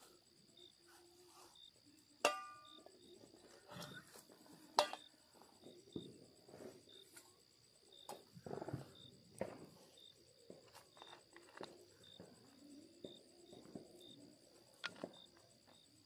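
Steel plate and camping gear being handled and set down: scattered clatter and clicks, with one ringing metal clink about two seconds in and a sharp click a few seconds later. Night insects chirp steadily underneath.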